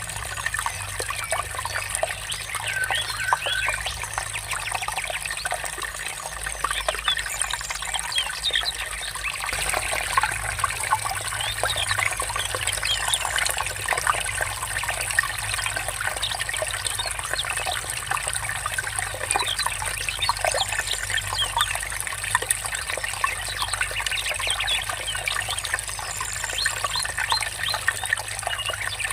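Water trickling and babbling steadily, with birds chirping in short calls over it.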